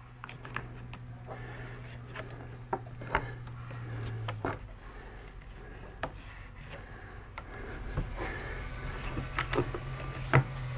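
Scattered clicks, knocks and rubbing as an Irwin one-handed bar clamp is fitted against a wooden drawer and its trigger squeezed to draw the glued front tight. A steady low hum runs underneath and changes about four seconds in.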